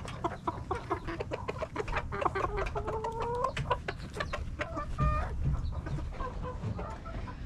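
Cochin bantam chickens clucking, with short calls throughout and longer drawn-out calls about three seconds in and again near five seconds, over many short clicks.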